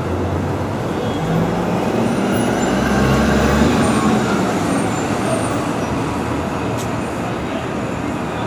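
Steady city traffic noise on a busy avenue, with a heavy vehicle's engine rumbling louder for a few seconds starting about a second in, then easing off.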